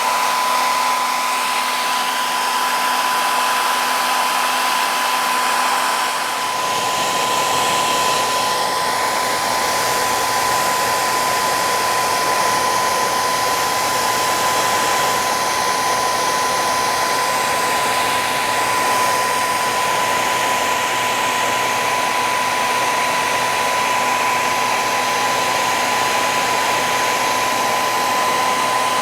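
Electric hot-air blower of the hair-dryer kind running steadily, with a constant whine over its rushing air; about six seconds in its sound fills out lower down.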